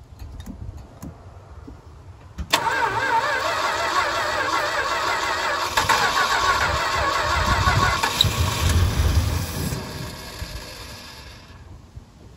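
1969 Dodge D200's engine being cranked over on its starter, wavering in pitch, with raw gas poured down the Carter AFB four-barrel carburetor as a prime because the float bowls are not filled. It starts suddenly about two and a half seconds in, turns to a heavier low rumble around eight seconds, and dies away by about eleven seconds.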